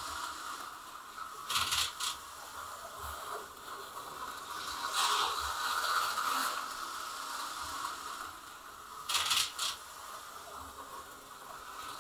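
Small plastic slot cars and track pieces being handled, giving short rattles and clatters three times, over a steady faint hum.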